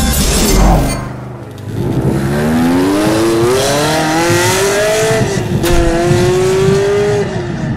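Car engine accelerating hard through the gears: its pitch climbs steadily, drops at a gear change about five seconds in, climbs again and drops at another shift near the end.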